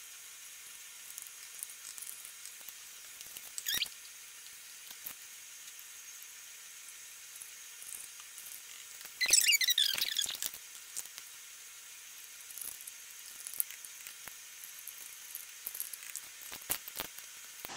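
Plastic spoon scraping baby food purée from small plastic tubs and spooning it into a plastic popsicle mould: scattered soft clicks and wet squelches, with two short squeaky scrapes of plastic on plastic, one about four seconds in and a longer one around nine to ten seconds.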